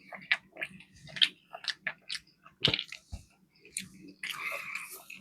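Close-miked chewing and biting of a battered fish fillet sandwich: a run of short wet smacks and crunches, with a longer rustling, noisy stretch about four seconds in.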